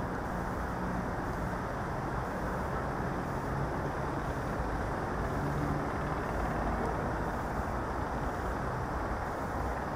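Steady wind rumbling across the microphone of the quadcopter's onboard camera, with a faint low hum that comes and goes.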